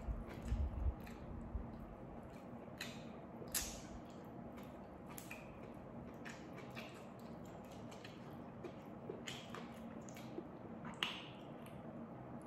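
Raw petai (stink bean) pod being split and its beans peeled out by hand: scattered sharp little cracks and snaps. A few low thumps come about half a second in.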